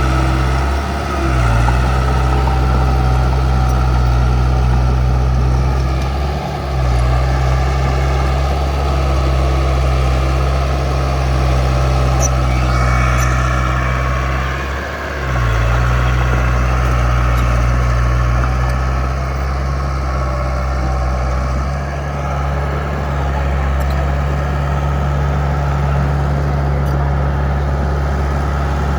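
Heavy construction vehicle's diesel engine running steadily, its note dipping briefly three times and shifting about three-quarters of the way through.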